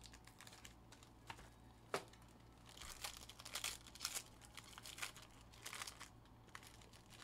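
Faint crinkling and tearing of a foil trading-card pack wrapper being pulled open by hand, with a sharp click about two seconds in and denser crinkling from about three seconds on.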